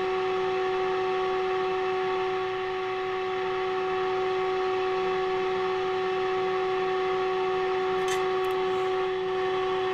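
The loudspeaker of a NordMende Elektra 58 valve radio sounding the signal generator's steady test tone, one even mid-pitched note with an overtone, while IF transformer III is peaked during AM alignment. The tone dips slightly a few seconds in.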